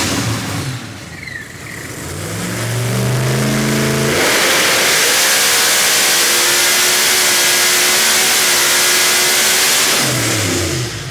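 Supercharged Pro Mod HEMI engine running on a hub dyno. It drops to a low idle, revs climb over about two seconds, then it holds a loud full-throttle run with a high whine on top for about six seconds, and the throttle closes near the end.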